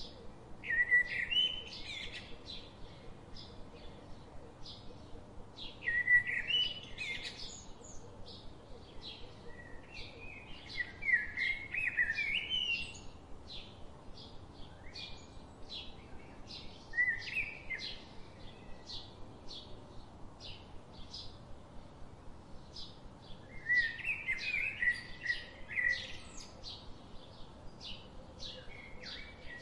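Songbirds singing: a short warbled phrase every few seconds over a steady series of short high chirps, about two a second.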